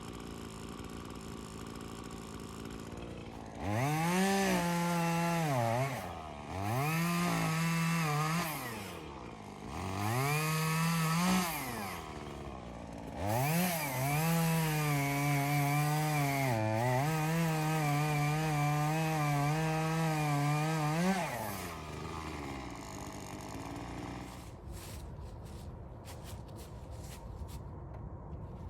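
Chainsaw engine revved to full throttle in three short bursts, each falling back toward idle, then held high for about seven seconds as it cuts into a tree, before it stops. A low hiss and a few faint ticks follow.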